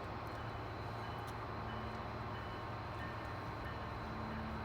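Train rumbling steadily, a low even rumble with a faint steady hum; a faint low tone comes in near the end.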